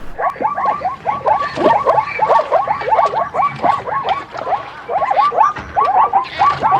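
A group of animals calling: a dense run of short, rising calls, several a second and overlapping.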